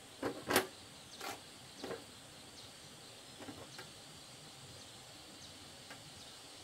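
Metal hand tools clinking and clattering in a toolbox as they are rummaged through: four sharp knocks in the first two seconds, then a few fainter ones. A steady insect drone runs underneath.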